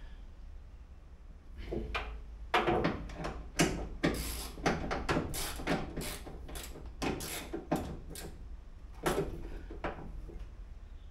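Door handle and lock parts being fitted into a bare steel car door: a busy run of sharp metallic clicks, taps and clatters against the sheet metal, starting about two seconds in and thinning out near the end.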